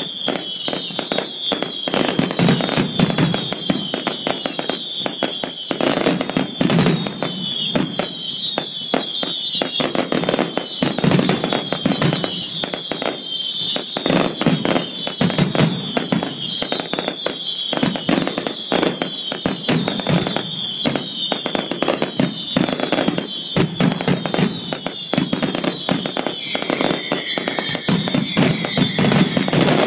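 Fireworks display finale: a continuous barrage of rapid bangs and crackling from crackling stars, with a high falling tone that repeats about once a second.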